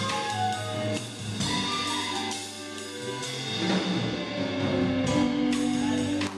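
Small jazz ensemble playing live: a melodic horn line over a walking upright bass and a drum kit with ringing cymbals.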